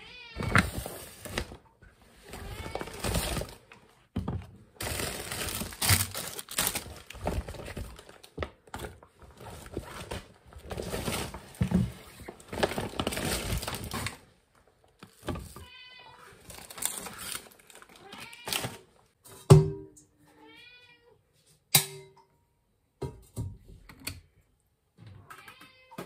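A domestic cat meowing at intervals among kitchen handling sounds. Crinkly rustling and handling of food packaging comes first. Later there are sparser knocks and clatters as items are moved and set down, the sharpest about three-quarters of the way in.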